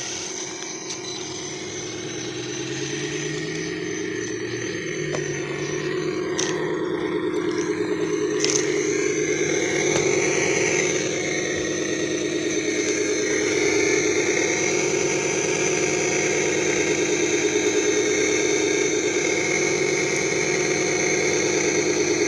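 Traxxas TRX-4 Sport RC crawler's electric motor and gear train whining steadily as the truck crawls, growing gradually louder, with two brief ticks about six and eight seconds in.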